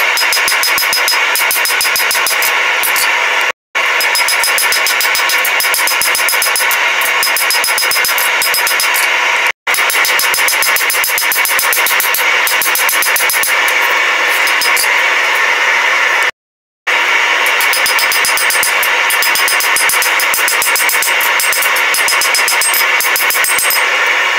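Hand hammer striking red-hot knife steel on an anvil in quick repeated blows, over a steady mechanical roar. The sound drops out abruptly three times.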